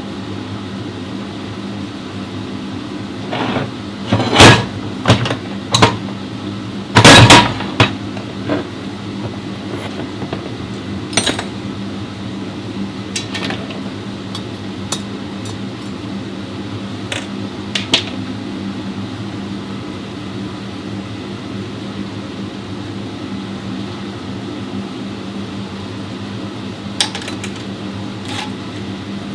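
A steady low machine hum runs under sharp metallic clanks and knocks from work with tools; the loudest knocks come about four and seven seconds in, with a few lighter taps after.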